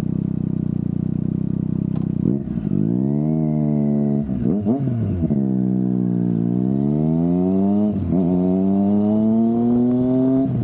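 Triumph Daytona 660's three-cylinder engine running steadily at low revs, then pulling away: the revs rise, fall back, and climb again, with a brief drop about eight seconds in as it shifts up and keeps accelerating.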